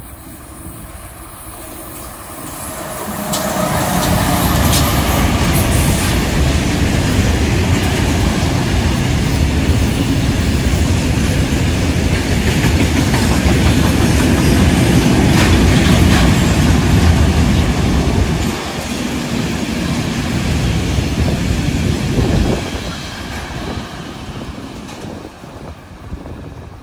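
Diesel-hauled freight train of tank wagons passing close by. The locomotive's sound swells about three seconds in as it comes past. The steady rolling noise of the wagons' wheels on the rails follows, dropping away in two steps over the last few seconds as the train recedes.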